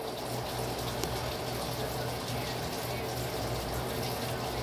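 Broccoli and carrots sizzling in a wok over high heat: a steady hiss, over a low steady hum.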